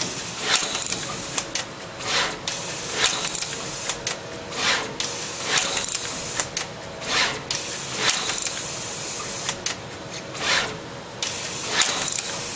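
Stepper-driven pick-and-place machine at work: its placement head moves in repeated short runs with a whooshing, whirring sound that swells and fades about every one to two seconds, with clicks between moves as parts are picked and placed on the circuit-board panel.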